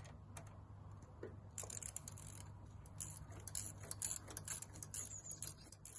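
Ratchet wrench clicking in quick runs as it turns a spark plug socket on an extension, with the clicks coming thickest from about a second and a half in.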